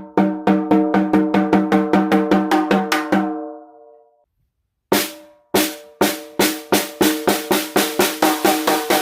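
14x7 African mahogany stave snare drum played in two runs of single strokes that speed up, each stroke ringing with a clear pitch. The first run dies away about four seconds in; after a brief gap a second, brighter run starts and carries on.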